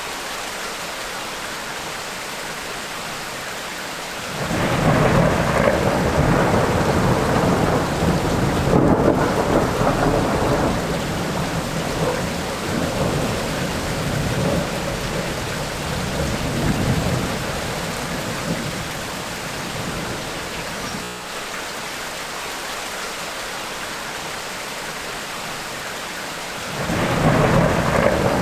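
Tropical rainstorm: steady rain falling with rolling thunder. About four seconds in, a long thunder rumble swells and rolls on, fading out by around twenty seconds; another roll of thunder begins near the end.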